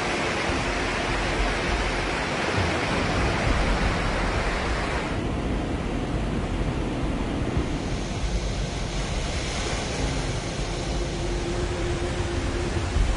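Steady rushing noise of fast-flowing floodwater; the higher hiss thins out about five seconds in.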